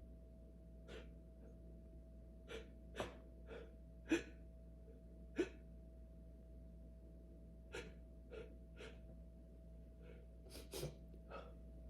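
A person's short, sharp gasps and breaths during a sneezing fit: about a dozen brief bursts, the strongest about four and five seconds in.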